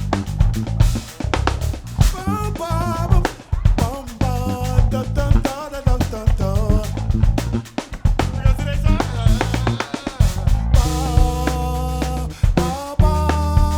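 Live band playing a groove: drum kit with kick and snare keeping a steady beat under a bass line, with a wavering melodic line over the top.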